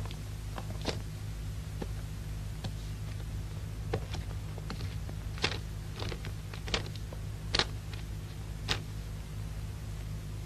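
Steady low hum with scattered short, sharp clicks and ticks; the loudest come in the second half.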